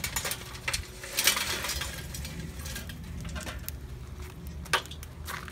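Lit charcoal tipped from a metal chimney starter clatters into a kettle grill: a burst of clinking and rattling, loudest about a second in, then dying away, with one more sharp knock near the end.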